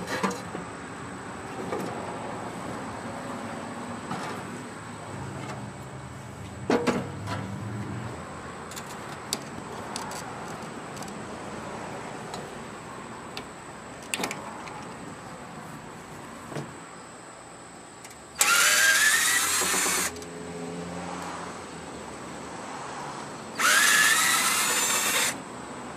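Occasional clinks and knocks of metal grill parts being handled, then a power drill run twice near the end, each run about a second and a half, its whine rising as it spins up.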